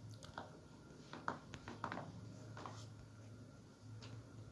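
Faint room tone with a low steady hum and a scattering of soft clicks.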